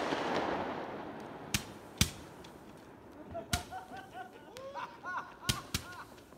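Consumer fireworks: the crackling hiss of a burst dies away, then about five separate sharp bangs from shells and rising comets, two of them close together near the end.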